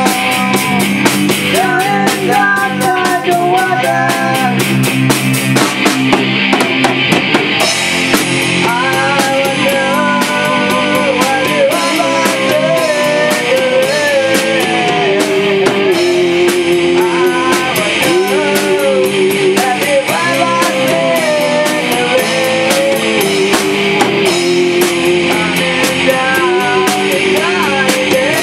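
Rock band rehearsing a song live: a drum kit with constant cymbal and hi-hat strokes, electric guitars playing chords, and a melody line that slides and bends in pitch over them.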